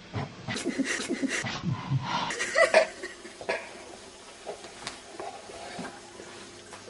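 A person laughing in short, rapid bursts for about three and a half seconds, then quieter with a few faint clicks.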